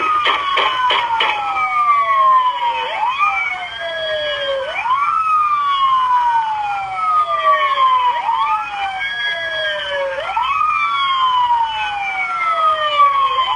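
Several police sirens wail at once, out of step. Each cycle rises quickly and then falls slowly over about two and a half seconds. A quick run of sharp knocks or clicks comes in the first second.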